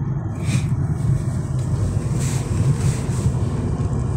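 Steady low rumble of a car driving on a wet road, heard from inside the cabin: engine and tyre noise, with a few brief swells of hiss.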